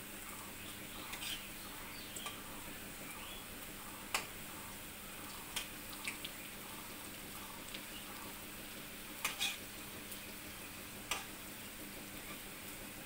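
Masoor dal pakoras sizzling steadily as they deep-fry in hot oil in a metal kadai. A steel spatula clinks and scrapes against the pan several times as they are turned.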